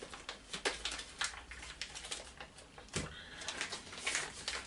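Archery stabilizers in sealed plastic packaging tubes being handled and set down on a table: scattered light clicks, taps and rustles, with a slightly louder knock about three seconds in.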